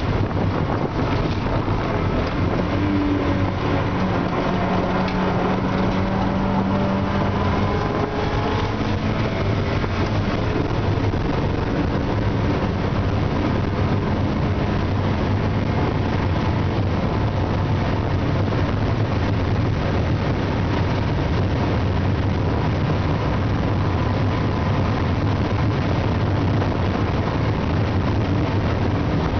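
Mazda Eunos Roadster's 1.6-litre B6ZE four-cylinder engine running under load on track, heard from inside the open cabin with heavy wind noise on the microphone. Its pitch wanders in the first several seconds, then holds fairly steady.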